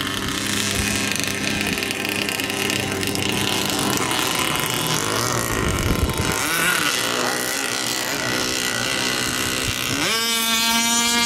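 Gasoline-engined RC racing boats running at high speed: small two-stroke engines giving a high, buzzing note that wavers in pitch, over the hiss of spray. About ten seconds in, a louder, steady engine note sets in abruptly.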